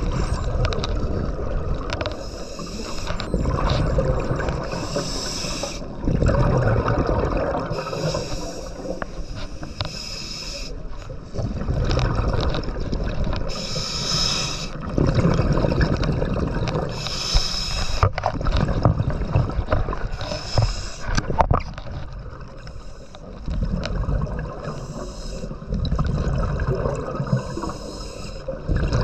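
Scuba diver breathing through a regulator underwater: a hiss on each inhale alternating with a low rush of bubbles on each exhale, a breath every few seconds. A few sharp clicks stand out near the middle.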